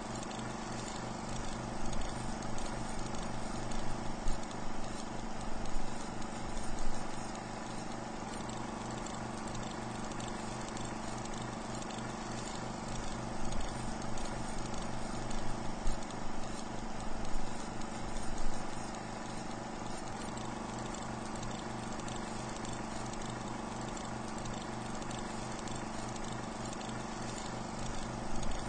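Film projector running, a steady hum with a fast, even clatter, with louder irregular crackles in two stretches.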